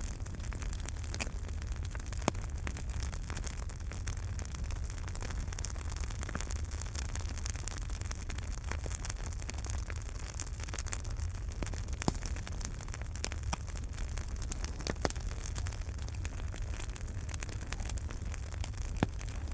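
Wood fire crackling in a fireplace: a steady low rumble of burning with scattered sharp crackles and pops, a few of them louder.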